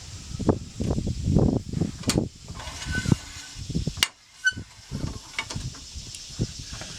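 Handling noises: irregular knocks, bumps and rustling as things are moved about, with a sharp click about four seconds in and two brief squeaks around the middle.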